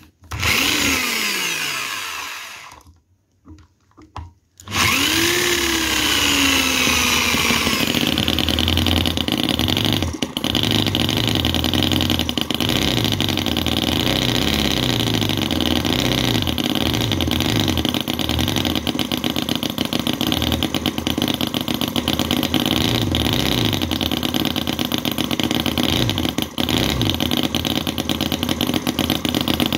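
Microcosm R28 45-degree V-twin 4.3 cc petrol model engine starting with the choke off. A first brief spin dies away after about two seconds. About four and a half seconds in it catches, revs up and settles into steady running, its speed wavering as the throttle lever is worked.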